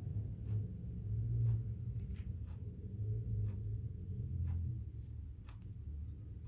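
Small paper and plastic merch packaging being handled and opened by hand: light rustling with scattered small clicks and ticks, over a low steady hum.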